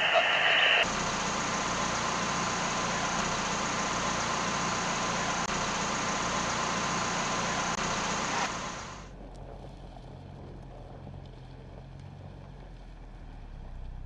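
Ford Bronco Everglades' 2.3-litre EcoBoost four-cylinder running under a steady, loud hiss of noise. About eight and a half seconds in the hiss cuts off, leaving a quieter, low engine hum.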